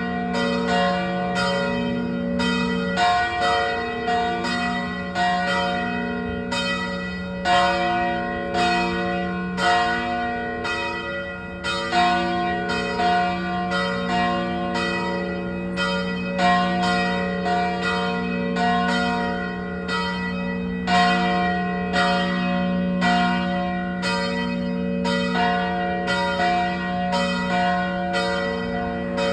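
Church bells ringing: several bells of different pitch struck one after another, about two strikes a second, in a sequence that repeats about every four and a half seconds, each note ringing on under the next.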